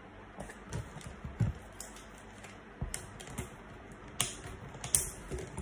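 Irregular clicks and knocks of a tripod's legs and leg clips being handled and worked, a few sharper knocks standing out.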